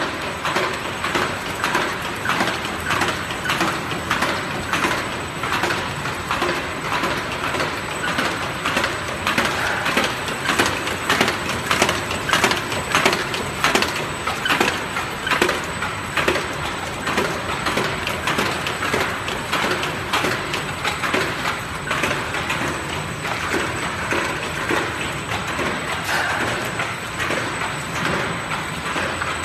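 A crash-lock-bottom folder gluer running, with cardboard box blanks feeding through its folding belts. It makes a continuous dense clatter of rapid clicks and rattles over a faint, steady high whine.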